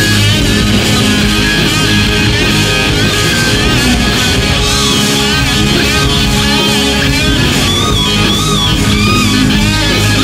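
Southern rock band playing live on electric guitars, bass guitar and drums, with a lead guitar playing bent, wavering high notes over the band.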